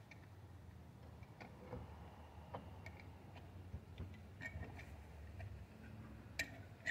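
Faint, scattered light clicks and taps of hands working on parts in a Chevy Caprice's engine bay, with a sharper click near the end, over a low steady hum.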